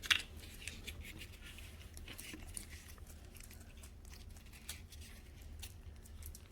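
Faint rustling and small clicks of small plastic toy pieces and paper being handled, with one sharper click at the very start.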